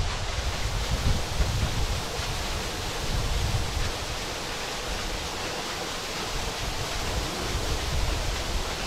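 A stream of water pouring from a hose into a deep concrete well shaft, a steady rushing splash, with wind gusting on the microphone.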